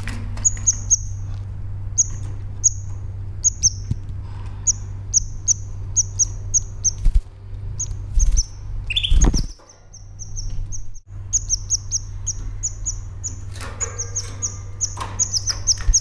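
A canary giving short, high chirps again and again, often in quick runs of several, over a steady low hum. A brief, louder rustling thump comes about nine seconds in.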